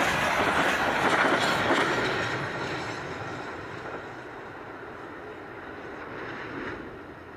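The last wagons of a long steel freight train rolling past on the rails, then the sound dying away over a few seconds as the train moves off into the distance.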